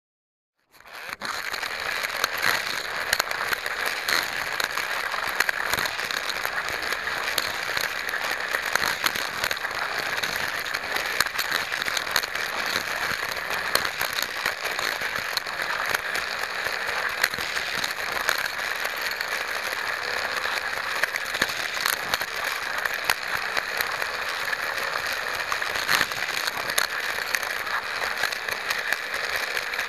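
Hot Wheels Sizzlers toy car running along plastic fat track, heard from a camera riding on the car: a steady high whir from its small electric motor, with a constant crackle of clicks and rattles. It starts abruptly about a second in.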